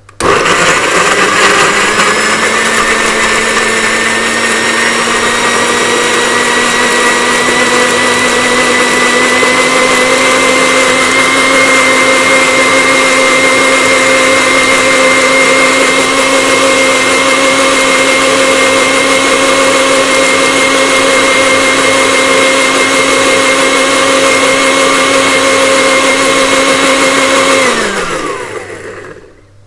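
Electric countertop blender switching on and running at full speed, pureeing chillies, fresh turmeric and water into a paste; its loud motor whine rises a little in pitch over the first several seconds as the chunks break down and the load eases, then holds steady. Near the end it is switched off and the pitch falls away as the motor winds down.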